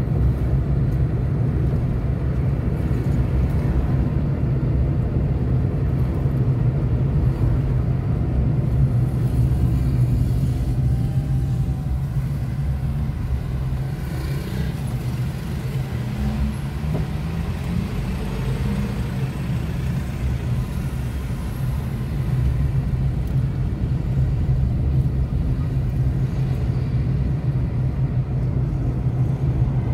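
Car engine and tyre noise heard from inside the cabin while driving: a steady, low-pitched drone, a little quieter through the middle.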